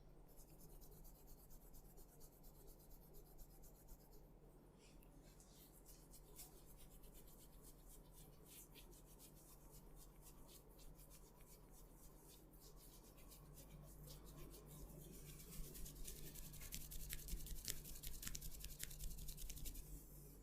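Hands rubbing and scratching over hair and skin during a head massage: a quiet, fine crackling rustle that grows louder in the last few seconds.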